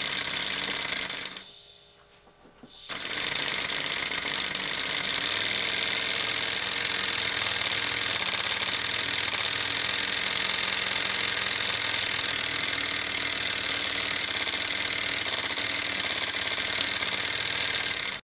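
Halo Liney five-cylinder radial model steam engine running steadily with a fast, even mechanical beat and a hissing rush of exhaust. The sound fades out briefly about two seconds in, comes back, and stops abruptly near the end.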